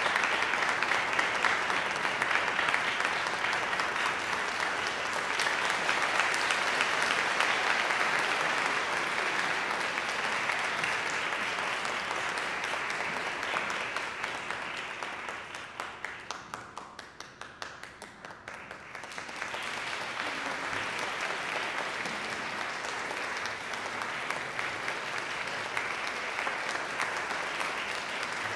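Audience applauding steadily. About two-thirds of the way through it thins to scattered single claps, then swells again.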